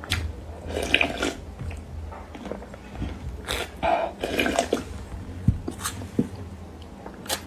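Close-miked eating sounds: irregular wet chewing and slurping of noodles in broth.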